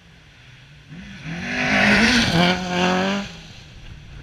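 Rally car passing at speed on a gravel stage. The engine note climbs about a second in and stays loud for about two seconds together with the hiss of tyres and thrown gravel. A short dip in engine pitch comes midway, and the noise falls away quickly near the end.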